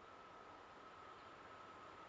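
Near silence: a distant electric freight train approaching, barely above a faint hiss, with a faint steady whine over it and the level rising slightly toward the end.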